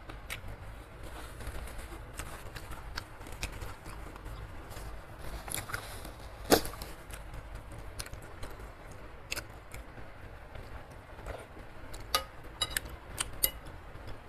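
Close-miked eating sounds: chewing, with scattered sharp clicks of a metal spoon and fork against the bowl, the sharpest about six and a half seconds in and a quick run of clicks near the end.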